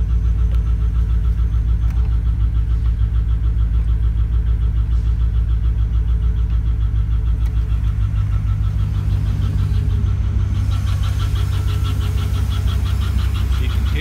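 A 2007 Chevy Silverado's 4.8 L V8 idling, with a constant, rapid, even tick that keeps time with engine speed. The owner takes the tick for a valve-train fault, a suspected bad lifter. The ticking comes through more clearly from about ten seconds in.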